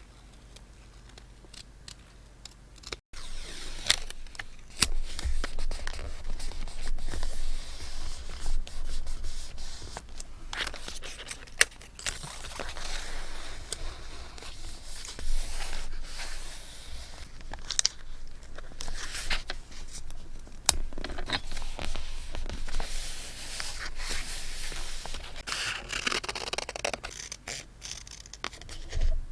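Paper and stationery being handled for scrapbooking: paper scraping, rustling and rubbing, with many short sharp clicks and taps. The first few seconds are quiet; the handling starts about three seconds in.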